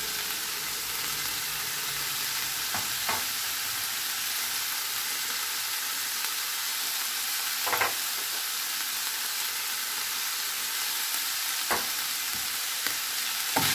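Minced meat sizzling in oil in a non-stick frying pan, a steady hiss now that its cooking water has dried off. A few brief clicks come through it as spices are shaken in.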